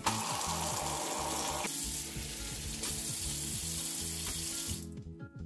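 Kitchen tap running onto a bundle of dried bamboo leaves in a stainless steel sink: a steady rush of water splashing on the dry leaves, stopping near the end.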